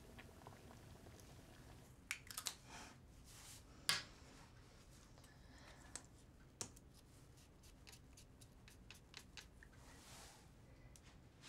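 Quiet room tone with a few faint small clicks and rustles of handling, the sharpest about four seconds in.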